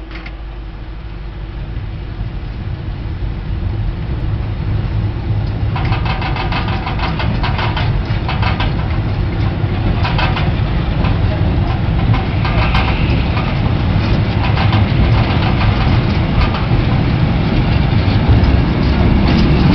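Car-carrying train pulling away from a standstill behind a Slovenian Railways class 664 diesel-electric locomotive: a steady low rumble that grows louder as it gathers speed. From about six seconds in, the wagons clank and rattle over the track.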